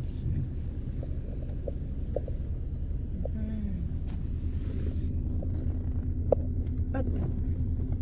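Steady low rumble of a car on the move, engine and road noise heard from inside the cabin, with a few light ticks.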